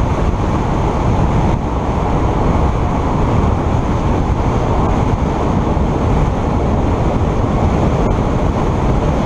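Steady wind and road noise from a vehicle driving at about 75 km/h, picked up by a camera mounted on it. It is a loud, even rumble with no break.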